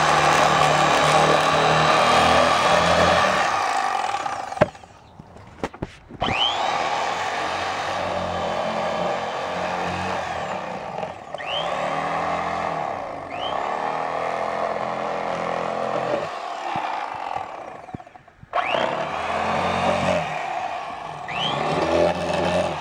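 Electric fillet knife running as it cuts and skins crappie fillets: a steady motor buzz whose pitch rises several times as the blades pick up speed. It cuts out briefly about four seconds in and again a few seconds before the end, then starts again.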